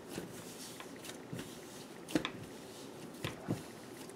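Hands rolling pizza dough into a taut ball on a countertop: faint rubbing and handling noise with a few light knocks, the loudest about two seconds in.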